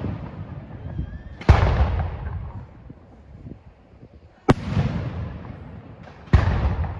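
Aerial firework shells bursting overhead: three sharp bangs, the first about a second and a half in and two more close together near the end, each followed by a rolling echo that dies away over a second or so. The echo of an earlier burst is fading at the start.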